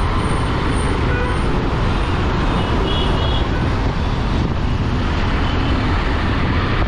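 Steady road noise of a motorcycle being ridden through city traffic: the engine running under wind rush and the sound of surrounding vehicles, with a couple of faint brief high tones about three seconds in.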